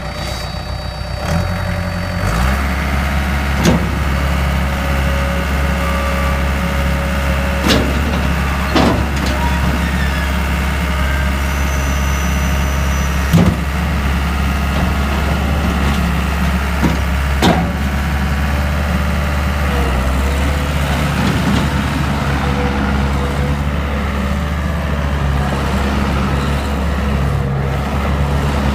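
Case 1845C skid steer's diesel engine running just after start-up, picking up speed about two seconds in and then running steadily. Five sharp clunks stand out over the engine through the first two-thirds.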